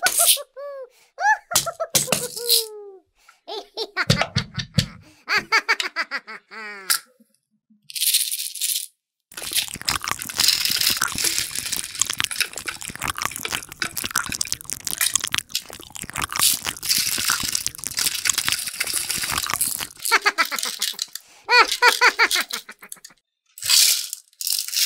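Small candy pieces rattling as they pour into a hollow plastic bunny toy's mouth, a dense clatter lasting about ten seconds in the middle. Before and after it come short giggling voice sounds, with a few sharp taps from a toy hammer at the start.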